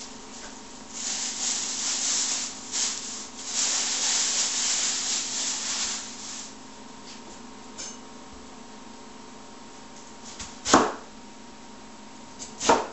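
Scratchy rubbing and scraping on wood in several swells for about five seconds, then two short sharp puffs about two seconds apart near the end.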